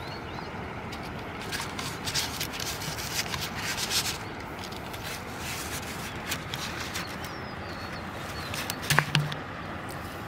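Rustling and clicking as plastic soda bottles and raw meat bait are handled by hand, over a steady outdoor hiss. A cluster of rustles comes a couple of seconds in, and one sharp click just before the end.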